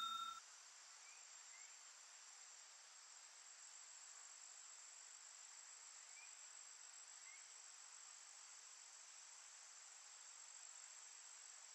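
Very faint woodland ambience: a steady high-pitched insect trill, with a few faint short chirps. The tail of a bell ding fades out in the first half second.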